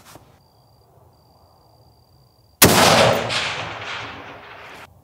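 A single rifle shot from a muzzle-braked Bergara B-14 Wilderness Ridge bolt-action rifle in 6.5 Creedmoor, a little past halfway, a sharp crack followed by about two seconds of echo fading away.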